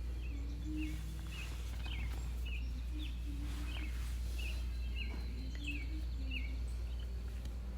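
A bird calling a short chirp over and over, about two a second, over a steady low hum.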